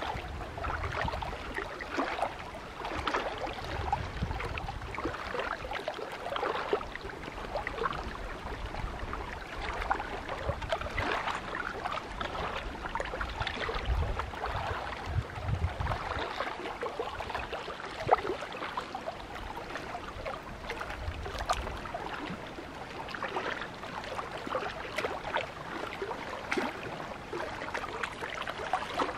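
Small waves lapping and splashing against granite shoreline rock, a continuous irregular patter of small splashes, with intermittent low rumbles of wind gusting on the microphone.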